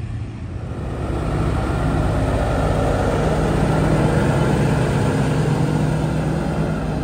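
Semi-truck's diesel engine running as the truck rolls past, growing louder about a second in and easing off near the end.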